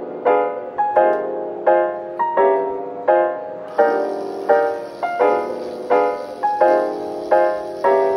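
Lo-fi background piano music, chords struck at an even pace of about three every two seconds. A steady high hiss joins about three and a half seconds in.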